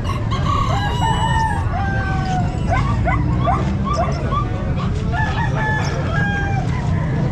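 Several roosters crowing and clucking at once, their calls overlapping: short rising and falling calls with a few longer held notes, over a steady low rumble.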